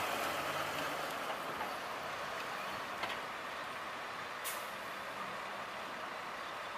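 Peterbilt 320 hook-lift truck's diesel engine running as the truck pulls away, easing off slightly. There is a brief sharp hiss from its air brakes about four and a half seconds in.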